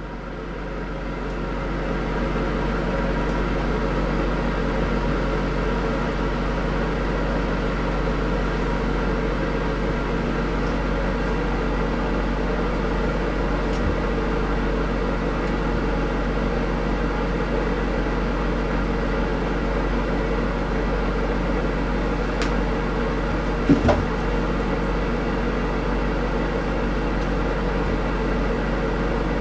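Steady mechanical hum with a deep drone under it, like a fan or motor running, with one brief knock about 24 seconds in.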